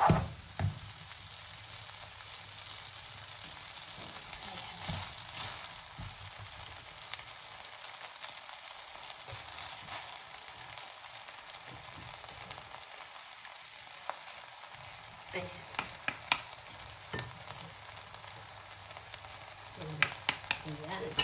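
Pancit bihon noodles and vegetables sizzling in a pot on the stove as they are stirred and tossed, a steady hiss with sharp taps and scrapes of the utensils against the pot, a few in the middle and a cluster near the end.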